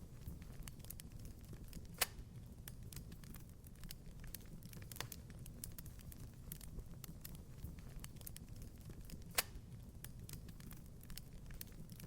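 Wood fire crackling in a fireplace: a steady low rumble with scattered small snaps, and two louder pops, about two seconds in and again near nine seconds.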